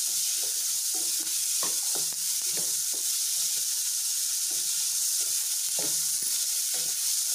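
Chopped onions, green chillies and garlic sizzling in hot oil in a kadhai with a steady hiss. A wooden spatula stirs them, scraping and knocking against the pan now and then.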